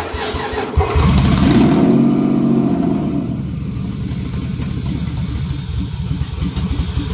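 Toyota 2JZ-GE 3.0-litre straight-six starting up. It revs up and back down over the first couple of seconds, then runs unevenly with a rough, pulsing beat and begins to falter near the end. It is struggling to stay running on its first start after the swap, which the owner puts down to vacuum leaks.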